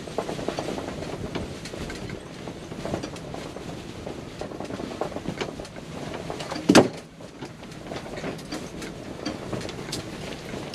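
Strong wind buffeting and rattling the fabric walls of a pop-up ice-fishing shack: a steady rumble with many small clicks and rattles. About seven seconds in there is one sharp knock.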